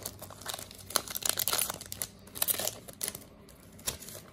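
Foil wrapper of a Pokémon TCG Sun & Moon booster pack being torn open and crinkled in the hands, as a quick irregular crackle that is busiest over the first three seconds and dies down near the end.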